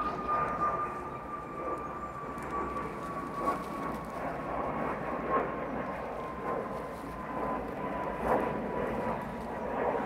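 Airliner flying over: a steady rushing engine noise with a high whine that slowly falls in pitch.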